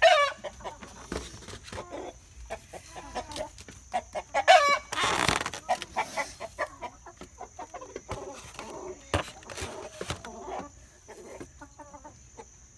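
Hens in a coop clucking and squawking, with loud calls at the start and about four and a half seconds in, a burst of noise just after, then softer clucks and scattered knocks. The hens are agitated, which the owner puts down to a hawk having scared them.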